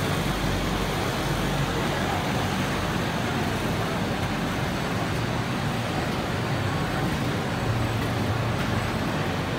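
Jingda JR-1531 flexo label printing machine running, a steady even machine noise as its rollers feed the printed label tape.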